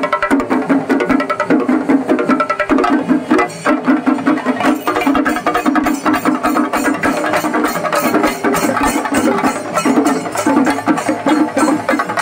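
Live percussion music from a Kerala temple-festival troupe: fast, dense drumming that keeps going without a break.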